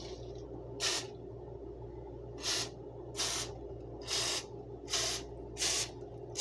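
Aerosol can of non-stick cooking spray giving about six short hissing sprays, a fraction of a second each, as a baking pan is greased.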